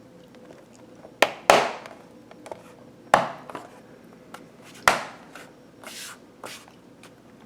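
A handful of sharp knocks and taps on something hard: two close together about a second in, one near three seconds and one near five, then a few softer taps.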